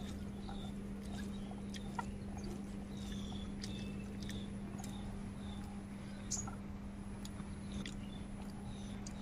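Fingers mixing rice and gravy on a stainless steel plate, making faint scattered clicks. Under it is a steady low hum, and short high chirps from a small bird repeat about every second.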